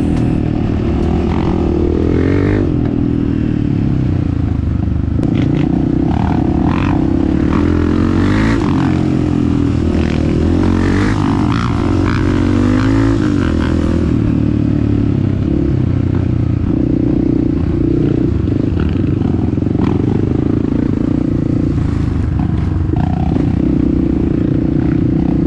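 Honda CRF250F trail bike's single-cylinder four-stroke engine running under way, its revs rising and falling, with clattering and scraping from riding over a rough dirt trail.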